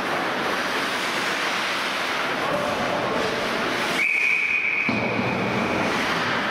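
An ice hockey referee's whistle blown in one long, steady blast starting about four seconds in, over a steady rushing rink noise.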